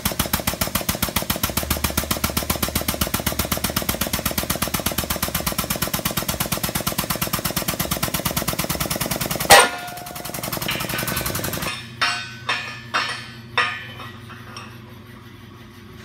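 Shop-built guided-bend test press with a hydraulic bottle jack, its pump running with a rapid, even pulsing as it forces a welded test coupon through the bending jig. The pulsing stops with a sharp bang about nine and a half seconds in, followed by a short steady noise and then four metallic clanks of steel.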